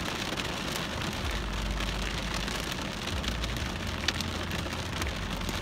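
Heavy rain drumming on a car's roof and windshield, heard from inside the cabin, with many small drop taps, a low rumble through the middle and one sharper tap about four seconds in.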